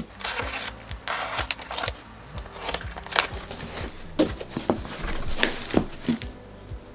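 Utility knife slitting packing tape on a cardboard box, two longer hissing strokes in the first two seconds, followed by rustling, scraping and clicking as the cardboard flaps are pulled open.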